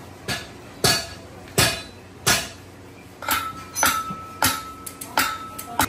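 Hammer beating out damaged car body sheet metal in steady blows, nine strikes about two-thirds of a second apart. From about three seconds in, the blows ring with a clear metallic tone.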